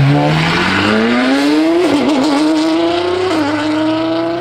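Apollo Project EVO's V12 engine at full throttle, accelerating away hard with its pitch climbing through the gears and dropping at upshifts about two seconds in and again near three and a half seconds.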